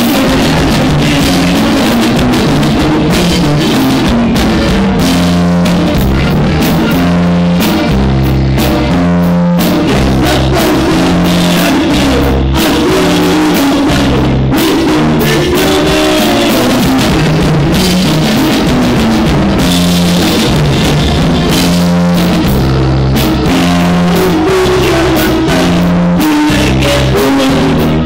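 A conjunto band playing a corrido, with a drum kit keeping a steady beat and a bass line stepping from note to note under guitar; loud throughout.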